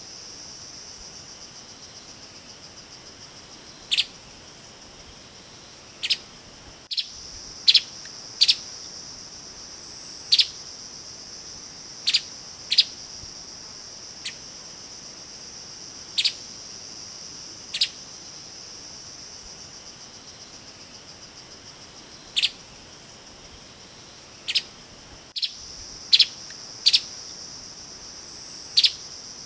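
Streaked spiderhunter giving short, sharp single calls every second or two, some in quick pairs, over a steady high-pitched insect drone.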